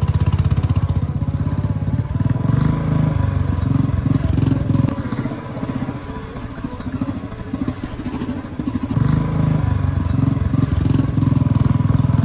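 Royal Enfield Bullet 350's single-cylinder engine running through a loud aftermarket shot-bottle silencer at low road speed. The exhaust note drops back for a few seconds mid-way, then picks up again.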